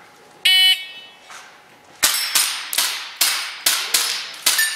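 Electronic shot-timer start beep, then about a second and a half later a rapid string of roughly eight sharp airsoft pistol shots with BBs ringing on steel plates over about two and a half seconds.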